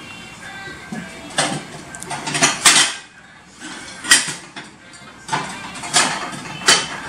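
Dishes clinking and knocking together as plates are shifted about in a kitchen cupboard: a string of separate sharp clinks, the loudest about four seconds in.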